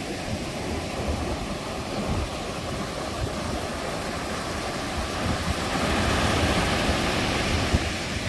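Ocean surf on a beach: a steady rushing roar with a deep rumble, swelling louder about five seconds in and easing near the end.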